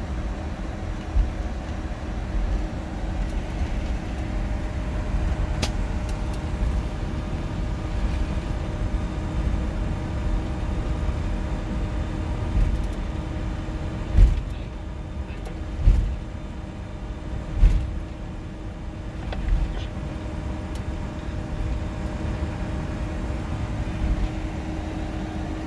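Steady hum on the flight deck of a Boeing 747-400 taxiing after landing, with a steady tone over the rumble. About halfway through come four low bumps, roughly two seconds apart.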